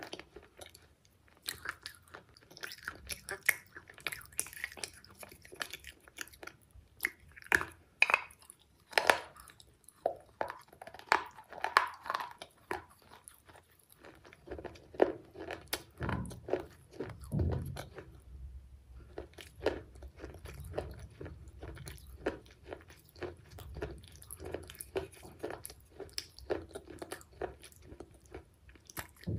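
A person biting and chewing pieces of a broken terracotta clay pot: many sharp, brittle crunches, with steadier chewing in the second half.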